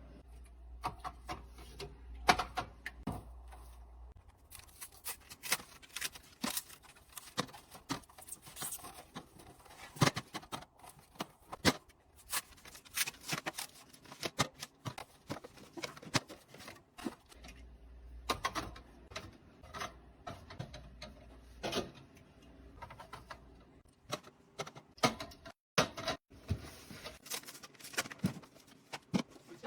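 Groceries and containers being handled and set down: irregular clicks, knocks and rubbing of plastic, cans and packaging, with no steady rhythm.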